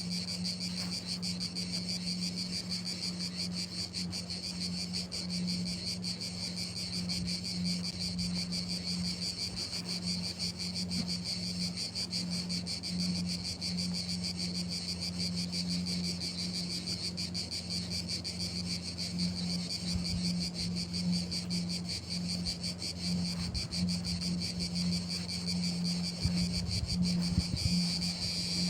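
Crickets chirping in a steady chorus: a continuous, fast-pulsing high trill, over a steady low hum. A few soft low thumps come near the end.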